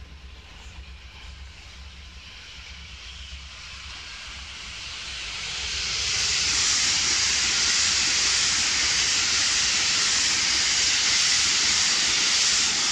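Electric passenger train running past on the line. The hiss of its wheels on the rails builds from about four seconds in and holds loud and steady, then cuts off abruptly at the very end.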